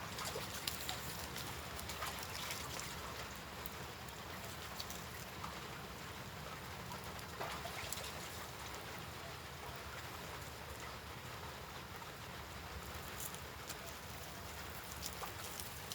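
Light rain falling: a steady hiss with scattered faint drips.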